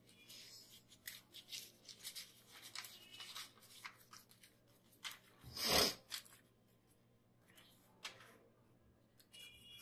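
Hands handling a portable thermal printer's paper compartment and paper roll: a string of small plastic clicks and paper rustles, with one louder rustle lasting about half a second about five and a half seconds in.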